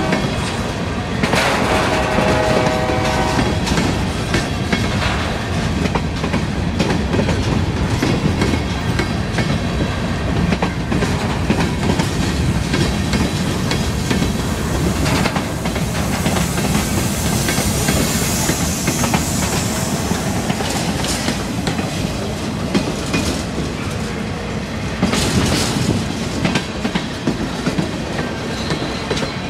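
Freight train cars (tank cars, covered hoppers and boxcars) rolling past close by, their steel wheels clacking over the rail joints in a loud, steady rumble. A short ringing squeal comes about two seconds in.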